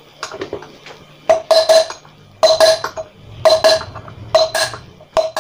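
Hammer blows on a round socket used as a drift, driving the rear wheel bearing out of a Honda CBR 150R's alloy wheel hub: sharp, ringing metal strikes in small clusters about once a second, starting about a second in.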